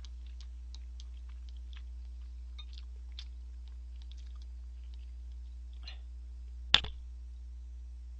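Eating noises: faint chewing and small scattered clicks as noodles are eaten with chopsticks and a spoon, with one sharp click about seven seconds in. A steady low hum runs underneath.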